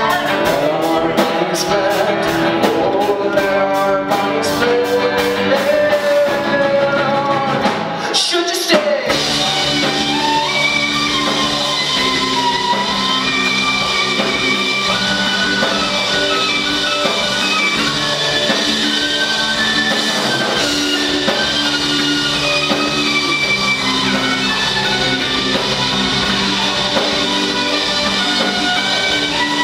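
Live rock band with violin, electric guitar, bass guitar and drums playing. After a brief break about eight seconds in, the violin carries the melody over the band.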